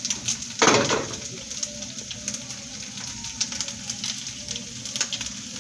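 Rinse water from the blender pouring in a thin stream into a pot of hot green salsa with pork, with small crackling ticks from the pot. There is a short loud rush about half a second in.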